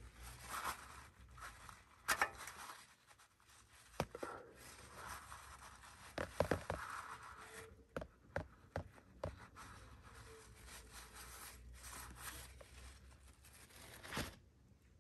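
Faint hand-work noise at the exposed valve body of a 1995 Toyota 4Runner's A340H automatic transmission: scraping and rubbing with scattered sharp clicks as a shift solenoid and its wire are worked loose. The loudest clicks come about two, four and six seconds in.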